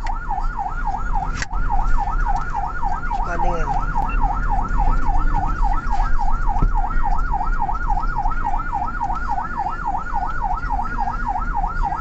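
Ambulance siren in fast yelp mode, sweeping up and down about four times a second, heard from inside the moving ambulance over the low rumble of its engine and the road.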